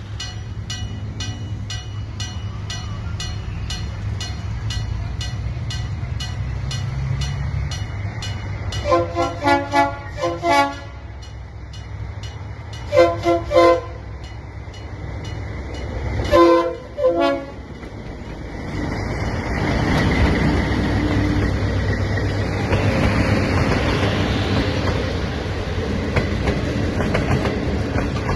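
Diesel-electric locomotives (DF7G-C) sounding a multi-tone air horn in short blasts: four quick toots, then two, then two more. Their engines rumble steadily underneath. From about two-thirds of the way in, the wheels and cars rolling past on the rails build to a loud, steady clatter. A faint regular ticking, about two a second, runs through the first half.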